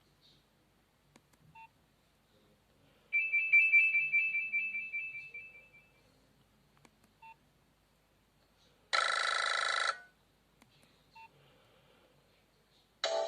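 Nokia 2760 mobile phone playing short tones through its speaker: a fast trilling two-tone ring that fades away over about three seconds, then a single one-second beep about nine seconds in, with a few faint short blips in between.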